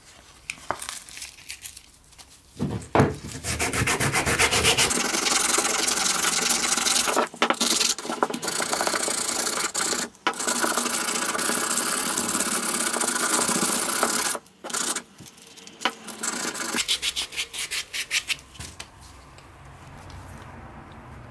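Sandpaper rubbing back and forth on the wooden handle of a hand drill's crank, a dense scratchy sanding with a few brief pauses. Near the end it breaks into quicker, separate strokes that fade away.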